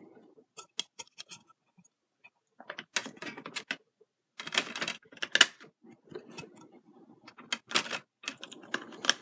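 Irregular clicks and short bursts of plastic clatter as DVDs are pried off the hubs of a clear plastic multi-disc case and slid against one another, coming in clusters with brief pauses between.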